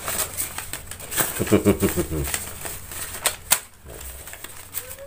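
Paper banknotes rustling and flicking as a handful is sorted and counted by hand: a quick run of small crinkles and snaps, with one sharper snap about three and a half seconds in.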